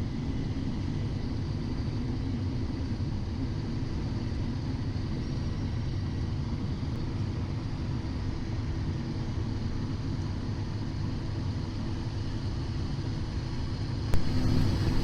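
Steady cockpit noise of a Cessna Citation XL on final approach, with gear down and flaps at landing setting: an even low rumble of engines and airflow with faint steady tones above it. There is a click about fourteen seconds in, after which it gets louder.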